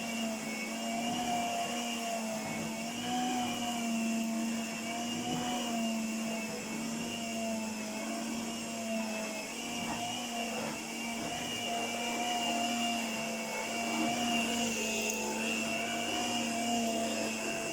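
1978 Princess electric carpet sweeper running: a steady motor hum and brush whir, wavering slightly in pitch.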